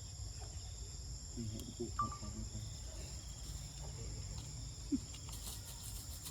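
Insects, crickets or cicadas, droning steadily in several high, even tones, over a low rumbling background, with a few faint short sounds and clicks.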